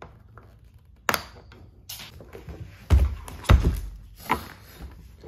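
A hard plastic Pelican case being handled and tipped over on a rubber floor mat: two sharp clicks, then two heavy thuds about half a second apart and a lighter knock.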